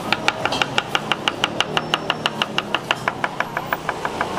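Metal spatula striking a flat roti griddle in a fast, even rhythm: about six ringing metallic clanks a second, fading a little toward the end.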